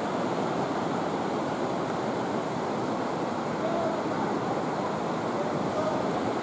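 Steady rushing of the Katun River's whitewater at the Teldykpen rapids, pouring through a narrow rock channel.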